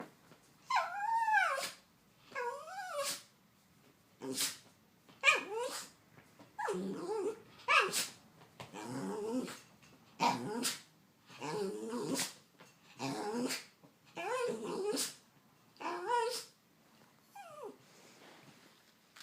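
A dog sneezing and snorting again and again, mixed with whining, grumbling calls, one burst about every second. The owner puts the sneezing down to allergies. The bursts thin out and fade near the end.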